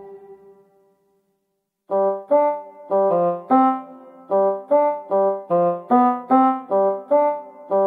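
Background music: a held keyboard chord dies away into about a second of silence, then a tune of short, separately struck piano-like notes starts about two seconds in, two to three notes a second.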